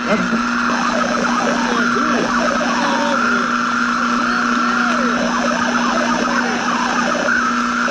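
Radio static: a steady hiss with a constant hum-like tone and many short warbling whistles that glide up and down in pitch, like a shortwave receiver's interference.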